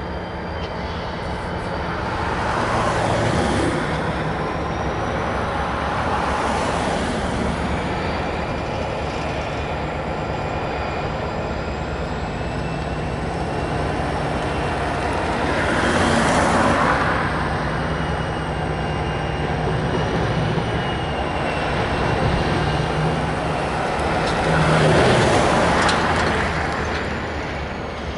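Diesel freight locomotive running at low speed, with thin high wheel squeal from the slow-moving train. The noise swells louder a few times, most strongly around sixteen and twenty-five seconds in.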